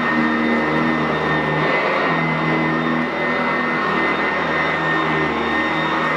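Upright vacuum cleaner running steadily as it is pushed over carpet, its motor giving a constant high whine over a hum.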